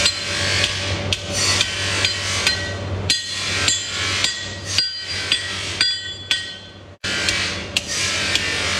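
Hand hammer forging a red-hot spearhead on an anvil: repeated metal-on-metal strikes, each ringing briefly, over a steady low hum.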